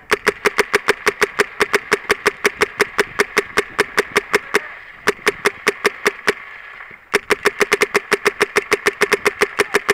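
Dangerous Power G5 paintball marker firing rapid, evenly spaced shots, about seven a second, for about four and a half seconds, pausing for about two seconds, then firing again in the same steady string.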